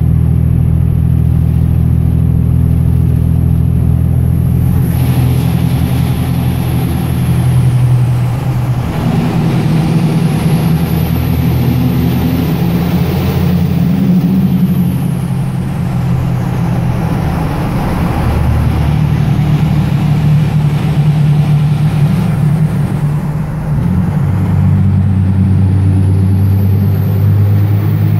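Cummins 5.9 diesel engine of a Dodge Ram pickup, heard from inside the cab while driving, with a steady low engine note that shifts in pitch several times as engine speed changes.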